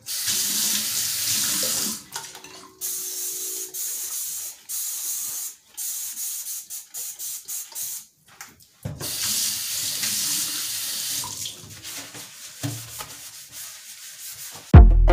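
Kitchen faucet running water into a stainless steel sink, switched on and off in spells, with rinsing and splashing in the basin. Music comes in loudly just before the end.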